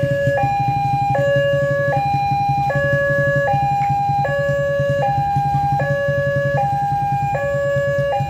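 Electronic level-crossing warning alarm from the loudspeaker on the crossing signal post, sounding a steady two-tone high-low chime that switches pitch about every 0.8 seconds, the warning that a train is approaching. A steady low rumble sits underneath.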